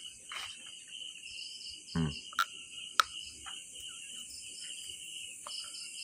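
Night chorus of crickets and frogs, a steady high trill, with a short low call about two seconds in and two sharp clicks soon after.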